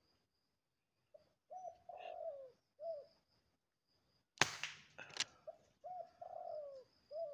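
Spotted dove cooing in short phrases of curved low notes. About four and a half seconds in comes one sharp, loud crack, which is the loudest sound, then a second click under a second later, most likely the Sharp Pegasus pump air rifle firing. The cooing goes on afterwards.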